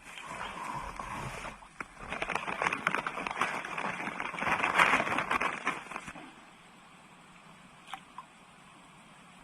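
Hooked climbing perch (betok) splashing and thrashing at the water's surface as it is pulled in, a crackly run of splashes lasting about six seconds and loudest near the end, then quiet apart from one sharp click.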